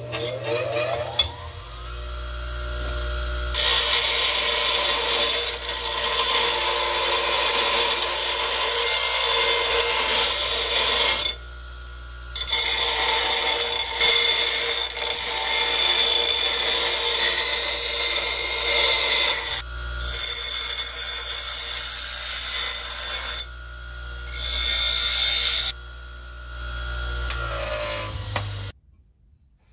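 Bench grinder motor spinning up with a rising whine, then a steel bar pressed against the grinding wheel in several long passes with short breaks between, a harsh hissing grind over the motor's hum. Near the end the grinding stops and the motor's whine falls as it winds down.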